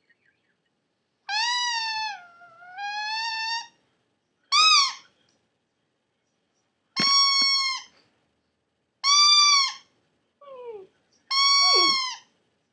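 Maltipoo puppy "singing": a series of about six high, drawn-out howls. The first and longest dips in pitch and rises again; the later ones are shorter and hold a steady pitch.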